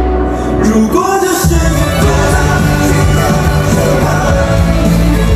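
Live pop performance in a large hall: a male singer singing into a microphone over an amplified backing track with heavy bass. About a second and a half in, the low sustained bass gives way to a new bass line and beat.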